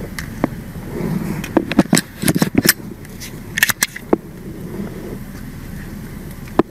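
A body-worn camera's microphone picking up its wearer on the move: clothing and gear rubbing, with a scatter of sharp clicks and knocks, thickest about two seconds in.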